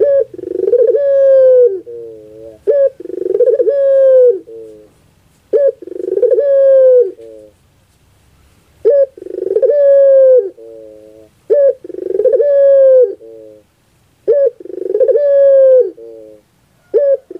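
Puter pelung dove (domestic ring-necked dove) cooing in repeated phrases, about six in all. Each is a short note, a long falling coo and a few quick trailing notes, coming about every three seconds.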